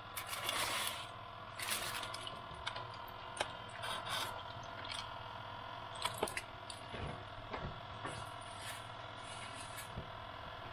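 Aluminium foil crinkling and rustling in bursts as a foil packet is handled and lifted off a toaster oven's wire rack, with scattered light clicks and knocks against the metal, over a faint steady hum.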